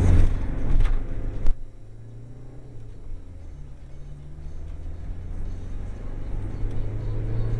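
Car engine and road noise heard from inside the cabin while driving. A sharp click comes about a second and a half in, after which the sound drops to a low engine hum that slowly grows louder.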